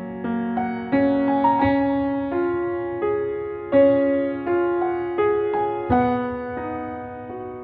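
Background piano music: single notes and chords struck one after another, each left to ring and die away.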